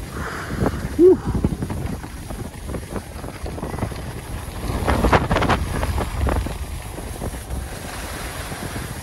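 Wind buffeting the microphone over the scrape of sliding downhill on packed snow. There is a short sound that glides in pitch about a second in, and a louder scraping surge around five seconds in.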